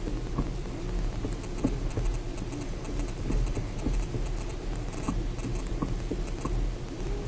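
Kia Ceed JD's electric power steering knocking: irregular dull knocks over a low steady rumble, the sign of a fault in the power-steering unit.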